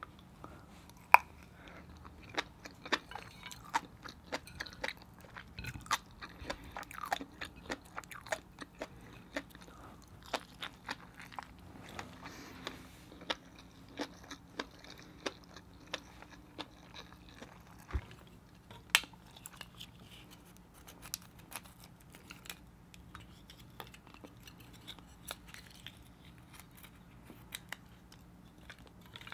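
Close-miked chewing of a mouthful of mussel in fish egg sauce: soft wet mouth clicks and smacks at irregular intervals.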